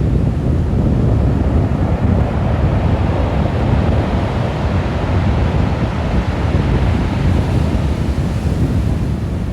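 Sea surf washing on the shore under strong wind buffeting the microphone. The surf swells for a few seconds in the middle.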